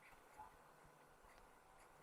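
Near silence: faint room tone with a couple of faint small ticks.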